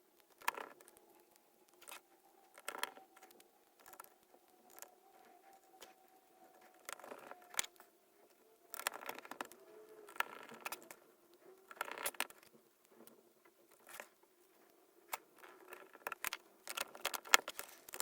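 Small screwdriver driving the back-cover screws into a Nintendo DS Lite's plastic shell: scattered light clicks and short scrapes of the driver bit and the plastic console being handled.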